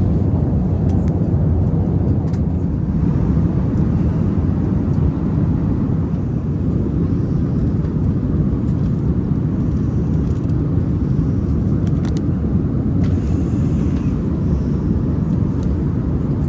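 Airbus A380 airliner cabin noise in cruise flight: a steady, low roar of airflow and engines, with a few faint clicks.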